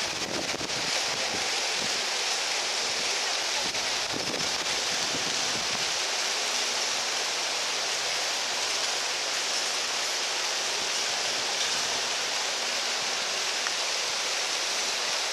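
Steady rushing hiss at an even level, with faint voices underneath.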